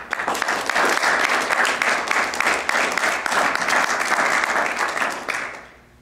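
Audience applauding, a dense patter of many hands clapping that dies away about five seconds in.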